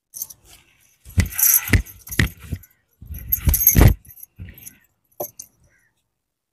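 Wooden pestle pounding raw mango in a wooden mortar: irregular heavy thumps in two short bursts, with bangles jingling on each stroke, then a few lighter taps.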